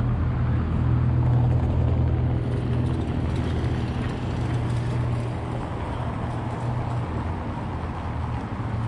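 A motor vehicle's engine running at a steady low pitch, over general street traffic noise.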